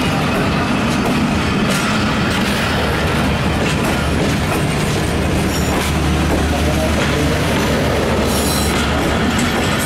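Pakistan Railways passenger coaches of the Khyber Mail Express rolling past close by: a steady, loud rumble of steel wheels on the rails, with occasional clicks over the rail joints.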